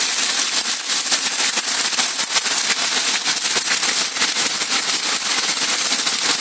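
Hailstorm: hailstones pelting down in a dense, steady clatter of small impacts mixed with the hiss of heavy rain.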